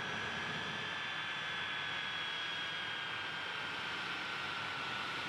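Boeing RC-135W Rivet Joint's four CFM56 (F108) turbofan engines running at taxi power: a steady rushing hiss with a high whine that drifts slightly lower in pitch.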